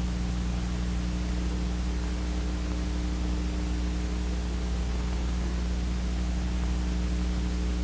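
Steady hiss and low hum of an old film soundtrack, with nothing else sounding.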